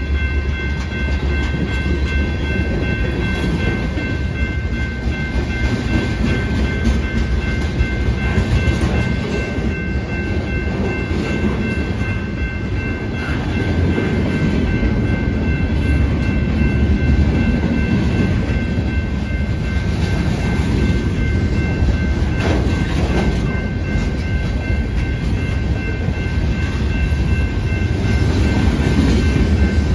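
Freight train of tank cars, boxcars and lumber-loaded flatcars rolling past at speed: a steady heavy rumble with wheel clatter. Several steady high-pitched ringing tones sound above it.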